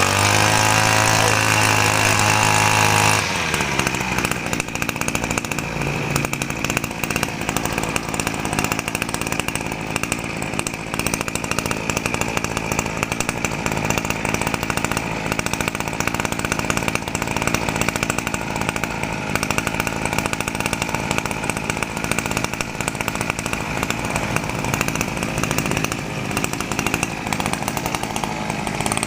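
Repaired RME260 brush cutter's small two-stroke engine running: held at high throttle for about the first three seconds, then dropping to a lower, rougher steady run. This is a test run after repair, with the engine responding readily to the throttle.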